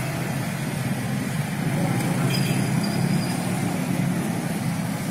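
Road traffic dominated by a passing motorbike engine: a steady low hum that swells a little in the middle. A brief high-pitched tone sounds about halfway through.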